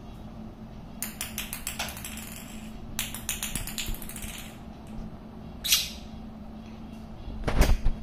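Quick runs of light clicking taps on a marble floor from a lovebird playing with a small hollow plastic ball, about a second in and again around three seconds. A short sharp sound comes near six seconds, and a louder thump near the end.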